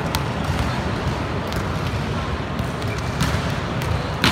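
A volleyball knocking a few times against the hard floor of an echoing sports hall, with a sharper, louder impact near the end, over steady hall noise.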